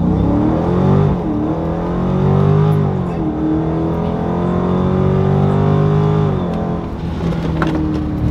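Dodge Charger SRT 392's 6.4-litre HEMI V8 at full throttle from a launch-control start, heard from inside the cabin. Its pitch climbs, drops at upshifts about one and three seconds in, climbs again, then falls away at about six and a half seconds as the throttle eases.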